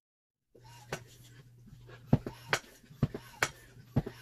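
Air Venturi GS7 high-pressure hand pump being stroked to fill a PCP air rifle's air tank, with a sharp click or knock on the strokes about every half second to a second over a faint steady low hum. The sound cuts in after about half a second of silence.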